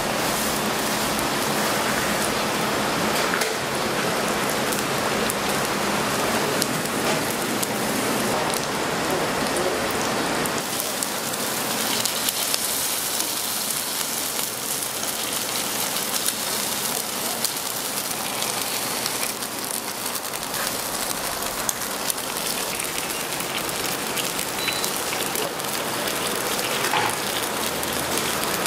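Steady sizzling hiss of hot oil in a street-stall deep fryer.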